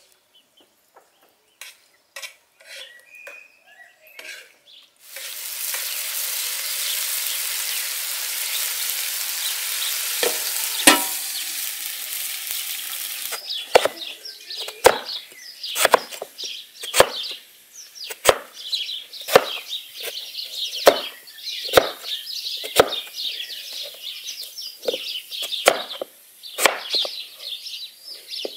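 Lamb liver sizzling in a hot saj pan over coals, starting about five seconds in, with a couple of knocks of the spoon against the pan. From the middle on, a crinkle-cut knife chops through potatoes onto a wooden board, about one chop a second.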